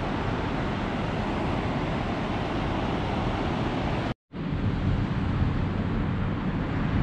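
Ocean surf breaking on a sandy beach, a steady rush, mixed with wind buffeting the microphone. The sound drops out abruptly for a moment about four seconds in, then comes back with a heavier wind rumble.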